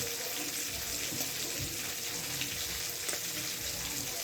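Water running steadily from a tap, a continuous hiss with a few light clicks and knocks.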